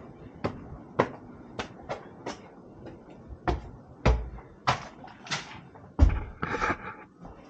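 Footsteps on a hard floor, a sharp step about every half-second, with two heavier thuds about four and six seconds in and a brief scrape just after the second.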